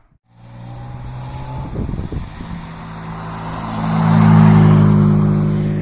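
Rally car engine driving past on the road, growing louder to its peak about four seconds in, then fading as it moves away.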